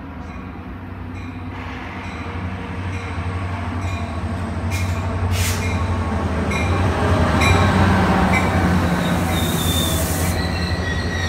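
Caltrain diesel locomotive and its bilevel gallery cars pulling in along the station platform. The engine rumbles steadily, growing louder as the locomotive closes in and passes, loudest about eight seconds in, with a few sharp clicks along the way. Near the end, as the cars roll by, there is a high-pitched squeal and hiss.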